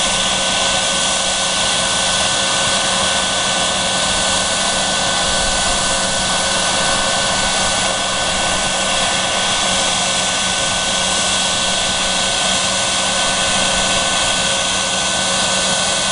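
Westinghouse J34 turbojet engine running steadily on a test stand: a constant jet rush with a steady whine of several held tones, at an unchanging speed.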